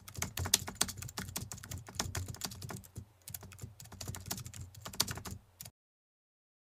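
Computer keyboard typing: quick, irregular key clicks with a short pause about three seconds in, stopping abruptly about five and a half seconds in.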